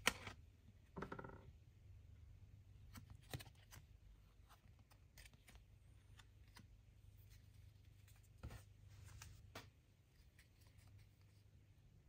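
Faint handling of trading cards: cards slide and flick against each other in the hands, with scattered soft clicks and taps. The sharpest click comes right at the start.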